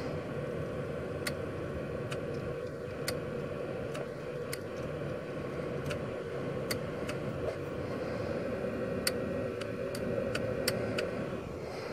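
Corvette windshield wiper motor ticking irregularly, about once a second, over a steady hum as it gets power but does not drive the wipers: the owner thinks the wiper motor is junk.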